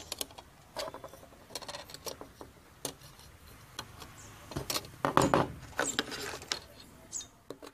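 Small metal parts clicking and clinking on a wooden tabletop as screws and hacksaw blades are handled by hand, with a louder rustle and clatter about five seconds in.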